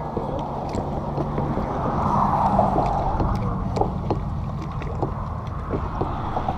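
Water lapping and splashing against a small boat's hull, with wind on the microphone. Light clicks and knocks come from handling a fishing rod and reel.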